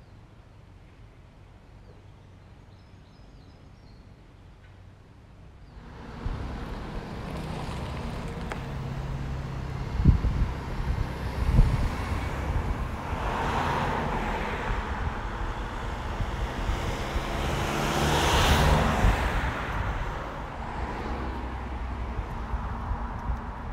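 Quiet at first, then road traffic about six seconds in: vehicles driving past, swelling and fading, the loudest pass-by about eighteen seconds in. Two sharp knocks come about ten and eleven and a half seconds in.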